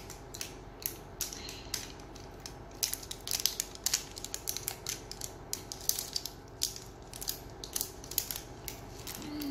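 Plastic wrapping crackling and crinkling as it is peeled and torn off an L.O.L. Surprise Pets toy ball: irregular sharp crackles, coming thickest in the middle.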